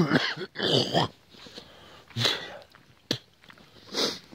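A person breathing hard and puffing close to the microphone, with several loud exhalations, short after short, while walking uphill. A sharp click comes about three seconds in.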